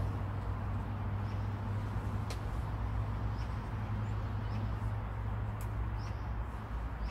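Steady low background hum by the water, with two sharp ticks about two and five and a half seconds in, and a few faint short high chirps.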